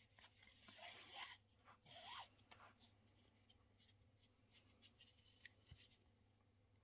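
Faint rasping swish of embroidery thread being pulled through the thread-wrapped surface of a temari ball, twice, about one and two seconds in. Light scattered ticks follow.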